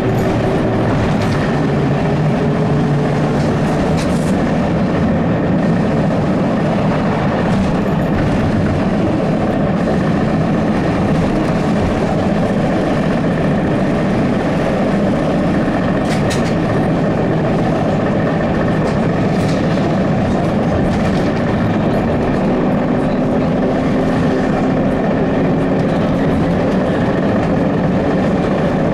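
Cabin noise of a ZiU-682G-016.05 trolleybus under way: a steady, loud rumble of road and body noise with a faint electric motor whine that slowly rises and falls in pitch, and an occasional knock.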